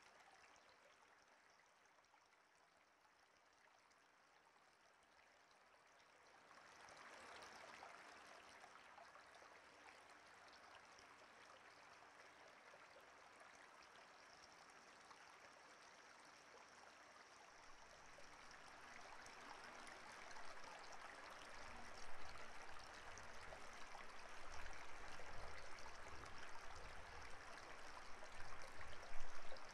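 Faint rushing noise like running water, swelling about six seconds in, with a low rumble joining past the middle and a few louder surges near the end.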